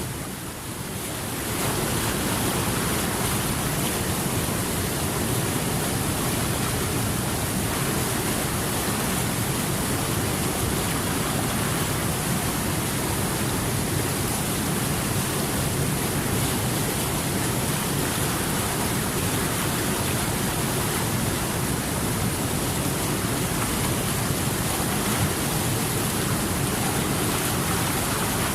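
Steady, dense rushing of water, an even hiss with no distinct events; it dips briefly in loudness right at the start before settling back.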